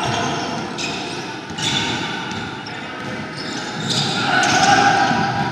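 Basketball game sounds on a hardwood court: the ball bouncing a few times amid indistinct players' calls and spectators' chatter.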